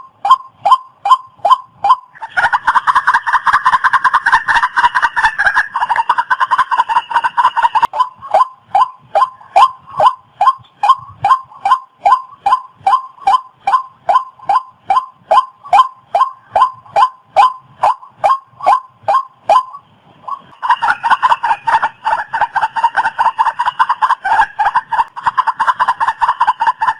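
Waterhen calls: a fast, even series of harsh repeated notes, about three a second, thickening into an overlapping chorus from about two to eight seconds in and again near the end.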